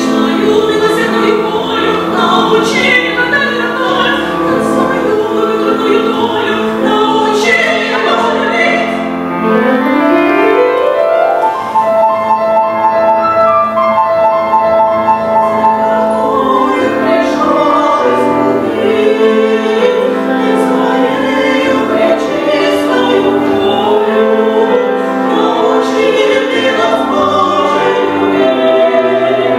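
Female vocal quartet singing in harmony with piano accompaniment. About ten seconds in, a rising run leads into long held notes.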